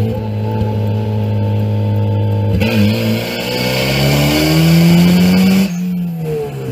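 Turbocharged Mazda Miata B6 1.6-litre four-cylinder engine under hard acceleration, heard from inside the car. Its note holds steady, then climbs with a loud hiss over it up to a 7300 rpm shift near the end, where the hiss cuts off and the revs drop before rising again in the next gear.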